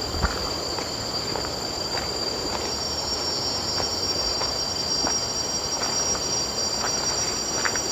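Forest insects keeping up a steady, high-pitched drone on several tones, with a higher tone joining about two and a half seconds in. Light, irregular footsteps sound underneath.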